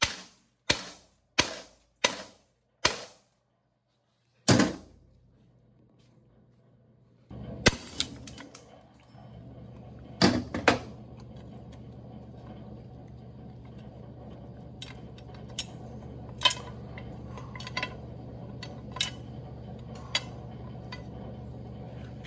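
Hammer blows on a steel U-joint yoke held in a bench vise, driving the bearing cap out of the yoke: a quick, even run of about five strikes, then one heavier blow. Later a steady low hum comes in, with a few more sharp metallic knocks and lighter clicks.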